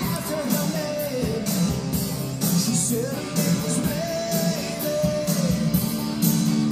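Rock music with a sung vocal line over guitar and a steady beat.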